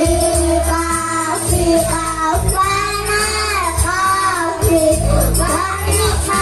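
A child singing a song over a musical backing with a low bass line. The notes are held and slide between pitches.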